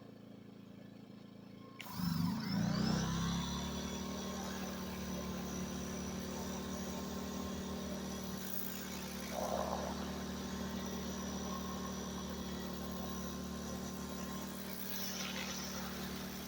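Ryobi 1800-watt electric pressure washer's motor kicking on suddenly about two seconds in. It spins up with a brief rising whine, then runs at a steady hum under the hiss of the water spray.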